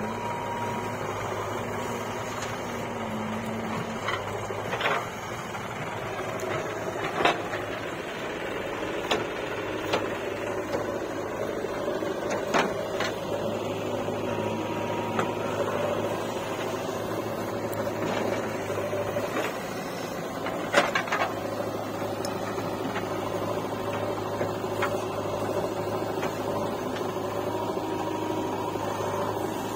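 JCB 3DX backhoe loader's diesel engine running steadily under load as the backhoe digs and swings, with a steady whine over it. Several sharp knocks, the loudest about 21 seconds in, as the bucket works the soil.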